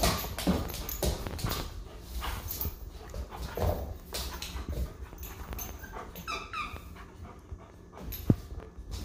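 A dog playing tug-of-war with a fabric rope toy: repeated scuffles and knocks as it pulls and shakes, a short high whine about six seconds in, and a sharp knock near the end.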